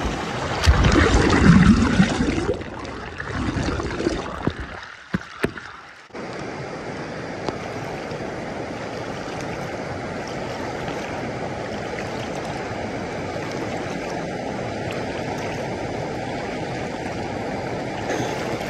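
Water rushing over rocks in a creek, loud and uneven for the first few seconds. It drops away briefly about five seconds in, then settles into a steady rush of flowing water.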